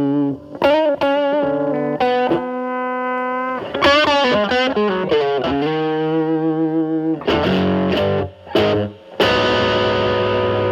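Telecaster played through a Fender Pugilist distortion pedal into a Marshall Valvestate amp: distorted single-note lead lines with sustained and bent notes, then thick sustained distorted chords struck from about seven seconds in.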